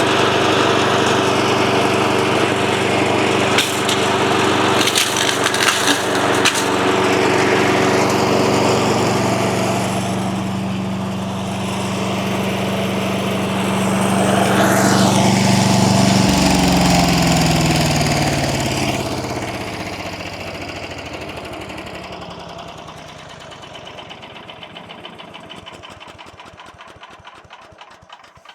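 Briggs & Stratton 8 HP single-cylinder engine of a chipper/shredder running steadily at speed after a tune-up, with a brief clatter of sharp knocks a few seconds in. After about sixteen seconds it is shut off and winds down, its pitch falling until it stops.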